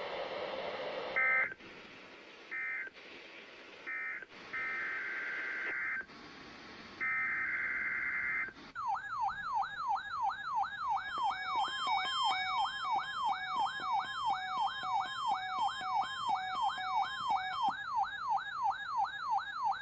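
NOAA Weather Radio SAME digital data bursts: a few short bursts, then longer ones. About 9 s in, a weather radio receiver's alarm starts, a warbling siren tone rising and falling about twice a second, set off by the Required Weekly Test. A few seconds later a second receiver's higher electronic beeping joins it for several seconds.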